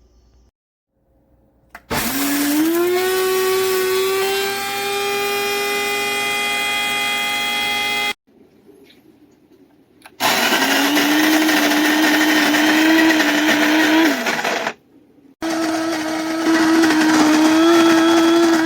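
Electric burr coffee grinder's motor running in three runs of several seconds each, cutting off abruptly between them; the first run starts with a rising hum as the motor spins up.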